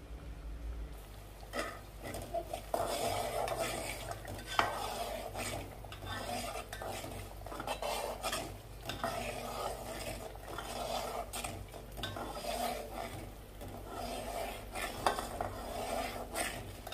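Metal spatula stirring and scraping around an aluminium pot of ghee and melting jaggery, with irregular scrapes and taps of metal on metal. The stirring starts about a second and a half in.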